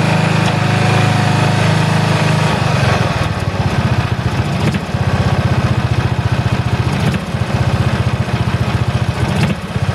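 Single-cylinder vertical-shaft Briggs & Stratton engine on a John Deere 68 riding mower, running. It holds a steady note at first, then about two and a half seconds in changes to an uneven, pulsing beat.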